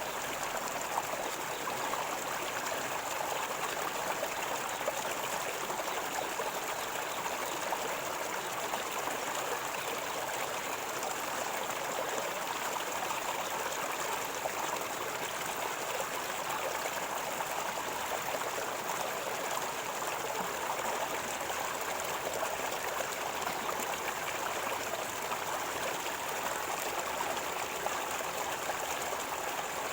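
River water flowing and gurgling steadily over rocks, an even, unbroken rush of water.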